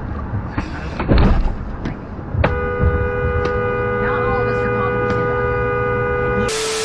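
Road noise inside a moving car, with a loud knock about a second in, then a car horn blown and held steadily for about four seconds. The horn is a warning at a pickup truck that has just lost part of its load onto the highway.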